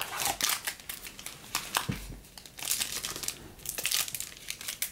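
Foil wrapper of a 2015 Panini Diamond Kings baseball card pack crinkling as it is handled and opened, with irregular crackles throughout and a low thump about two seconds in.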